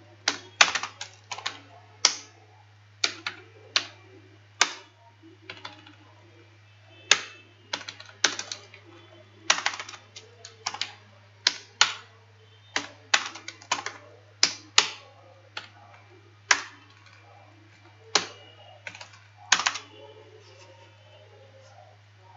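Typing on a computer keyboard: irregular keystrokes in short runs, stopping about 20 seconds in. A steady low hum runs underneath.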